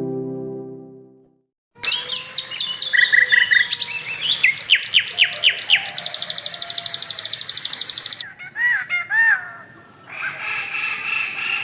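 Birds singing: a quick run of sharp chirps and down-slurred notes, then a fast even trill for about two seconds, then a few looping whistled calls and fainter high calls. A musical chord fades out at the very start.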